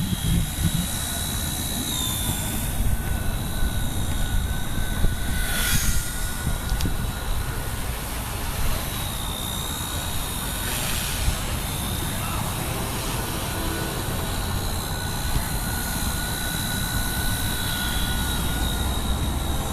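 Small electric RC helicopter flying: the motor and rotor make a steady high-pitched whine that dips slightly in pitch a few times as the throttle changes.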